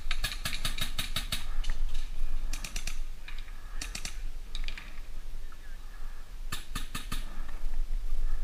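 Paintball markers firing in several quick strings of sharp pops, about seven shots a second, the longest string at the start and shorter ones after.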